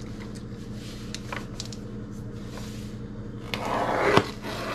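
A cardboard shipping box handled by hand: a few light clicks, then near the end a short rubbing scrape ending in a knock. A steady low hum sits underneath.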